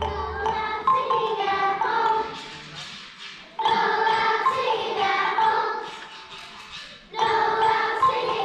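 A children's choir singing in unison, in three phrases that each start strongly and fade away.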